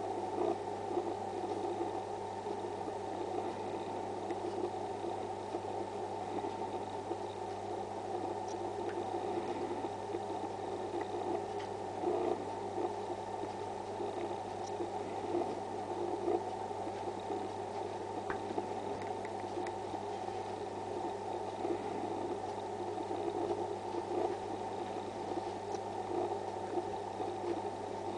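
A long-haired dachshund chewing and gnawing on a small toy, with scattered soft clicks, over a steady low hum.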